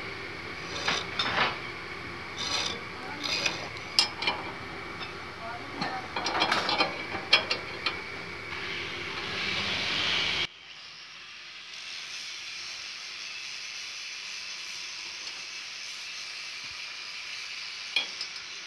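Metal clinks, knocks and scraping from a spanner and hands working on a bandsaw mill's V-belt pulley and its hub nuts, irregular and close together. About ten seconds in the sound cuts off abruptly to a quieter steady hiss, with one sharp click near the end.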